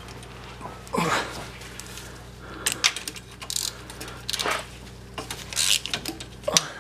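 Hand ratchet on a long socket extension loosening a 13 mm starter mounting bolt: short bursts of ratcheting and metal scraping about a second apart, over a steady low hum.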